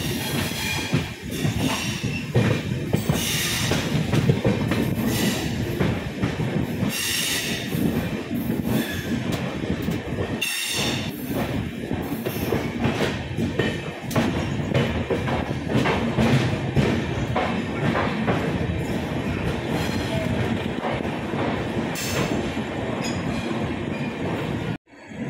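Express passenger train running along the track: a continuous rumble of wheels on rails with clatter and clicks over the rail joints, and a high-pitched wheel squeal that comes and goes several times. The sound drops out abruptly for a moment near the end.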